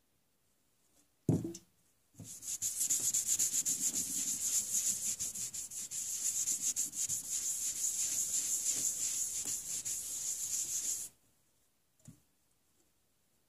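Acetone-soaked cloth scrubbed rapidly back and forth over a metal plate, wiping off nail-polish resist, for about nine seconds and stopping abruptly. A single thump comes about a second in, before the scrubbing starts.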